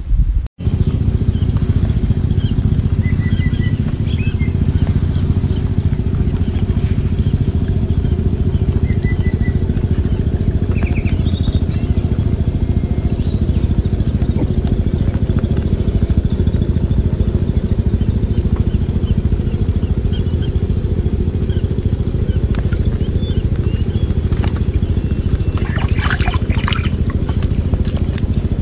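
A motor running steadily with a low, even drone. A few faint high chirps occur a few times, and a brief noisy burst comes near the end.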